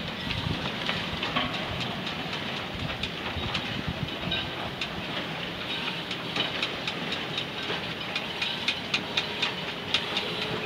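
Steady rushing hiss of wind buffeting the microphone, with quick sharp clicks, several a second, in the second half.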